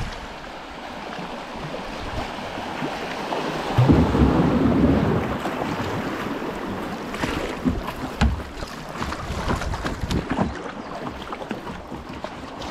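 Rushing, splashing river water as an open canoe runs through a small weir's chute, with wind buffeting the microphone. It surges loudest about four seconds in, then settles into choppy water noise with scattered sharp splashes.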